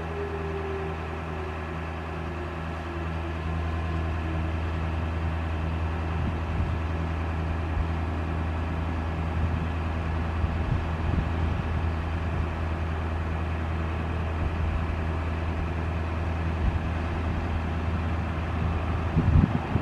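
A steady, low engine hum, like a vehicle idling, with a faint tone falling in pitch and fading over the first few seconds. A few short knocks come near the end.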